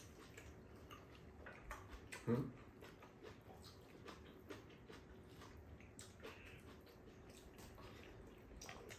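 Faint eating sounds at a table: metal chopsticks clicking against bowls and a pan, with soft chewing. A brief low vocal sound about two seconds in.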